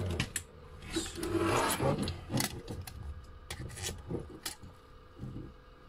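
Handling noise of a Schumacher Cougar laydown RC buggy chassis being picked up and turned over on a workbench: a scraping rub about one to two seconds in, then scattered light clicks and knocks.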